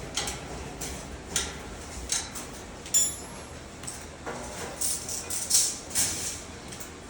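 Metal parts of a microwave stand clinking and scraping together as it is put together, with a sharp metallic clink about three seconds in that rings briefly.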